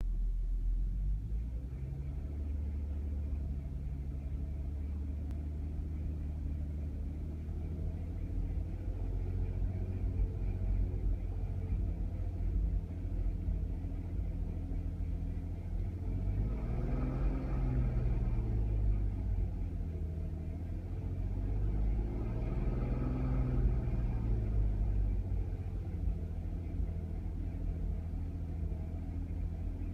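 Audi A3 3.2 V6 engine idling with a misfire, its low rumble uneven; it is revved up and let fall back twice, about halfway through and again a few seconds later.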